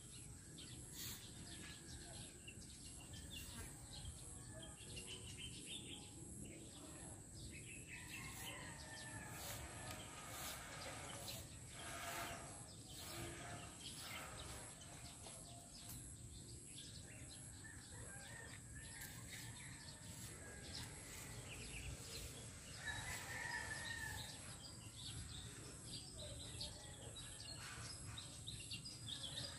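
Faint outdoor ambience with birds chirping now and then, the clearest call about two-thirds of the way through, over a steady high hiss and occasional light clicks.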